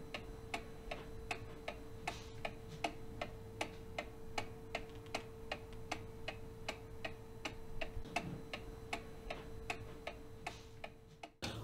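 Mechanical clock ticking steadily and evenly, a few ticks a second, over a faint steady hum.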